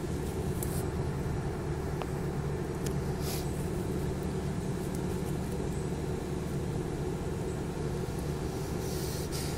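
Steady low rumble, with a few brief soft hisses: about a second in, about three seconds in and near the end.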